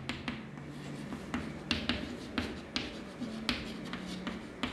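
Chalk writing on a blackboard: a string of irregular sharp taps and short scratches as letters are written.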